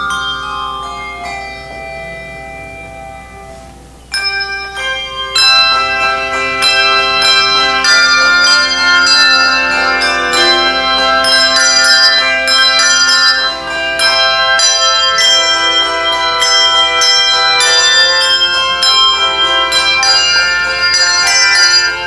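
Handbell choir playing. A few ringing notes step downward and die away, then about four seconds in the full set of handbells comes in with loud, many-noted ringing chords that carry on.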